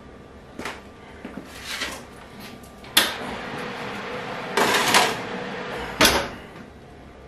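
Kitchen oven door dropped open with a sharp clack about three seconds in, a steady hiss while it stands open, a metal roasting tray scraped in onto the oven rack, and the door shut with a bang about six seconds in.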